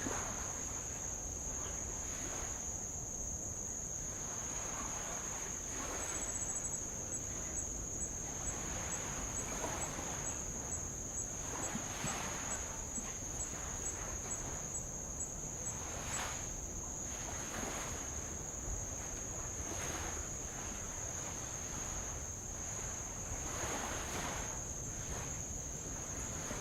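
Insects calling with one steady high-pitched trill, joined for a while by a second insect chirping in even pulses about twice a second. Under them, light waves wash softly against old lava rock every second or two.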